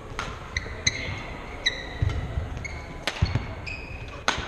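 Badminton rally: several sharp smacks of rackets hitting the shuttlecock, with short high squeaks of court shoes on the hardwood floor and the thuds of footwork.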